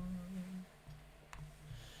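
A long, low sung vocal tone stops right at the start, leaving a quiet pause with faint low sounds and one soft click about a second in.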